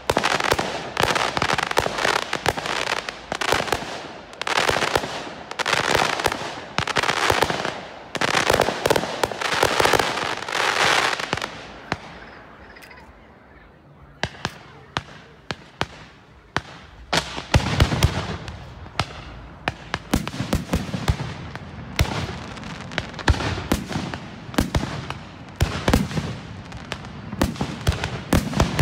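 Fireworks display: waves of dense crackling for about the first twelve seconds, then a short lull, then a run of sharp launch pops and deeper bangs from shells bursting overhead.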